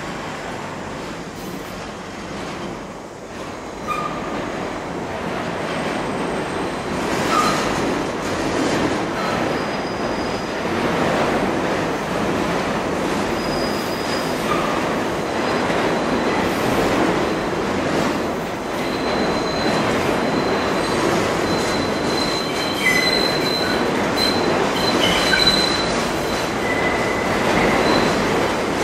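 New York City Subway train pulling out of a tight-radius loop station: a rumbling, rattling run that grows louder as it gathers speed. Short high-pitched wheel squeals from the sharp curve come more often in the second half.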